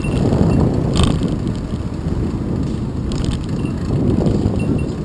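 Wind buffeting the microphone of a bike-mounted action camera, with tyre rumble from a fixed-gear bike rolling over pavement. A few sharp knocks, the loudest about a second in.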